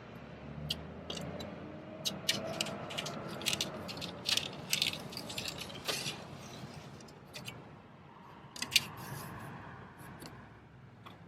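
A metal scraper prying plastic glazing beads out of an aluminium window frame: a run of sharp clicks and rattles, with one louder snap near the end.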